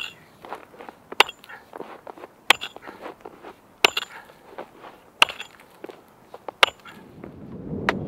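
Double-bit axe chopping a fishing hole in river ice: seven sharp strikes, evenly spaced a little over a second apart, with small crackles of ice chips between blows.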